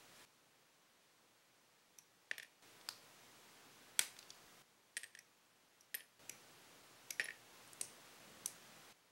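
Plastic parts of an HG Xi Gundam model kit clicking as they are snapped together and handled: about a dozen sharp, faint clicks, some in quick pairs.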